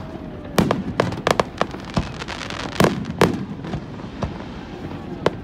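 Aerial fireworks display: shells bursting overhead in a run of sharp booms and crackles, each with an echoing tail, the loudest near the middle.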